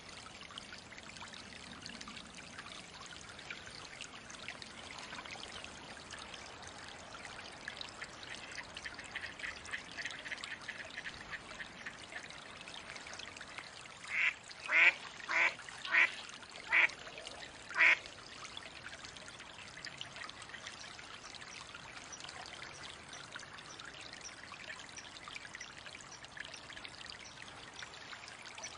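A mallard quacks five times in a quick, evenly spaced series about halfway through, over a steady sound of running water.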